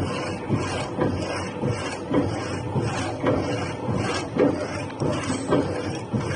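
Hydraulic power hacksaw machine (HS7125) sawing through metal stock. The reciprocating blade gives a rhythmic rasping that swells roughly twice a second.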